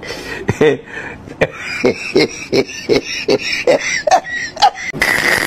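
A voice making a rapid string of short, rhythmic sounds, about three a second, climbing in pitch toward the end, with sharp clicks between them.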